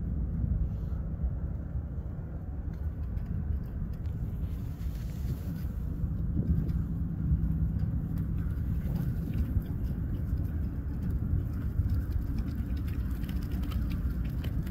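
Steady low rumble, with wind buffeting the microphone.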